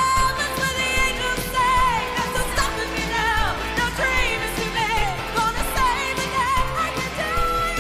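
Pop song with a singing voice over a full band and steady beat, playing as a dance soundtrack.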